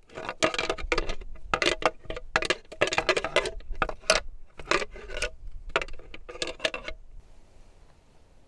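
Two deer antlers rattled and ground together by hand in a run of short scraping, clattering bouts, stopping about seven seconds in: antler rattling, which imitates bucks sparring.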